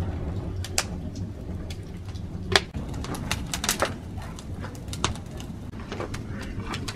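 Wood fire burning in a clay tandoor: a low steady rumble of flames with scattered sharp crackles and pops, the loudest about two and a half seconds in.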